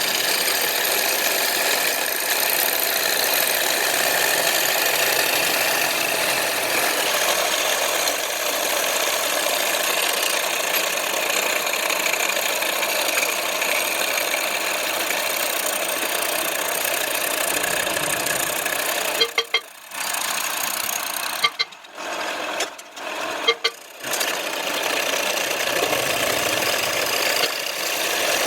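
Power tool working a steel plate, running with a steady, hissing, noisy sound. Near the end it drops away briefly several times.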